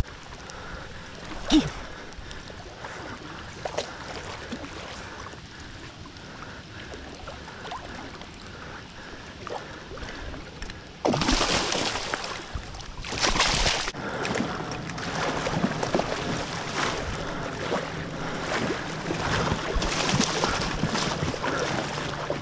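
Water sloshing and splashing at the surface of a lake, with wind on the microphone and a few sharp knocks early on. About halfway through the splashing becomes suddenly louder and close by, with a waterbird thrashing in the water right beside it.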